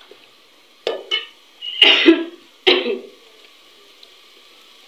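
A person coughing three times in quick succession, the second cough the longest and loudest, over a faint sizzle of masala frying in an aluminium pot.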